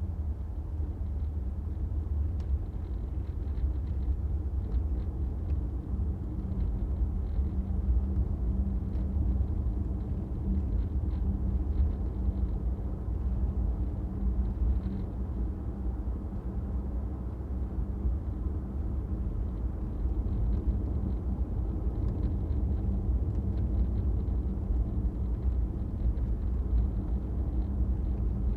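A car driving: a steady low engine and road rumble, with a faint hum held at one pitch.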